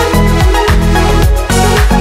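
Background electronic dance music with a steady beat and a deep bass line.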